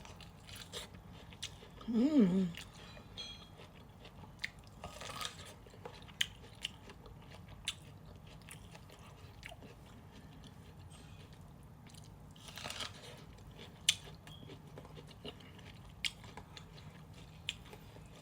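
A person chewing food close to the microphone, with scattered wet mouth clicks and smacks and a short hummed "mm" about two seconds in.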